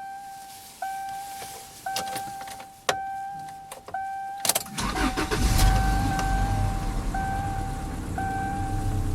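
Dashboard warning chime of a 2000 Subaru Outback dinging about once a second; about halfway through, the EJ25 2.5-litre flat-four starts with a short burst and settles to a steady idle while the chime carries on. The engine has a constant knock that the owner can't tell apart as rod knock or piston slap.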